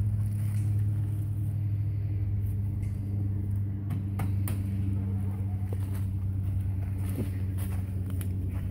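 A steady low mechanical hum from a running machine, with a few light clicks in the second half.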